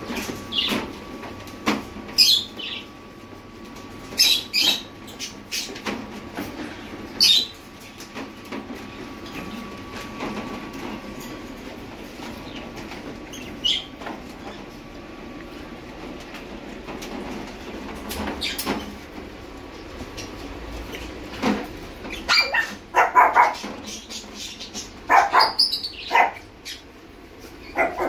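Caged pet-shop animals calling: short sharp high bird chirps here and there, then a burst of puppy barks and yaps over several seconds near the end.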